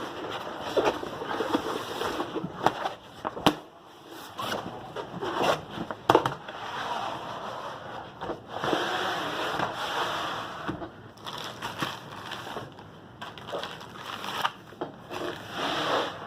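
Rustling and crinkling of a rolled diamond painting canvas and its cover being handled and rolled up, with scattered taps and clicks, one sharp click about three and a half seconds in.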